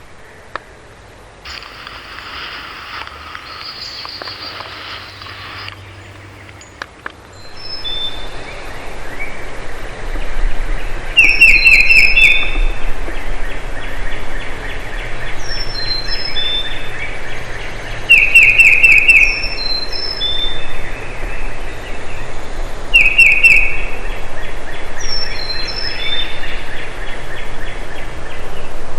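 Wild turkey gobbler gobbling loudly and close three times, each a rapid rattling call about a second long. Small birds chirp between the gobbles.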